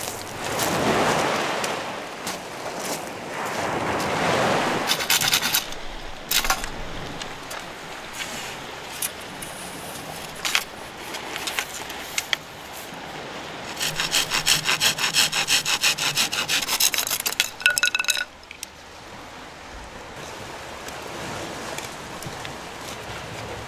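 Small hand saw cutting through wood: a few slow rasping strokes, then a quick run of short strokes near the end.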